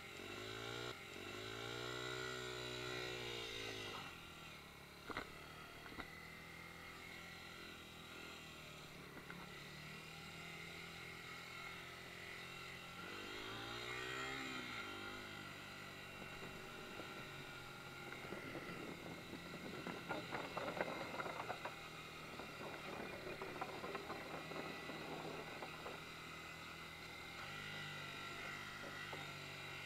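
Dirt bike engine under way, its revs climbing and falling twice as the rider accelerates, then holding steadier, with a rougher crackling stretch in the middle.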